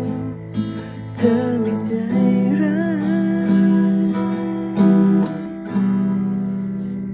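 Guitar strumming chords of a Thai rock song, with a voice holding a wavering sung note partway through; the last chord is left ringing and fades near the end.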